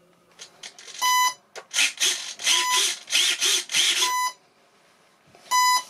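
Electronic beeps from radio-control gear during receiver binding: four short beeps at one steady pitch, about one and a half seconds apart. A stuttering hissy noise runs under the middle beeps.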